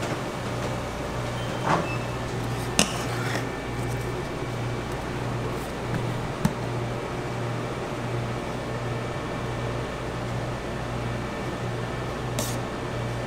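Steady hum of kitchen machinery with a low, pulsing throb, broken by a few light clicks and knocks from the steel bowl and trays being handled.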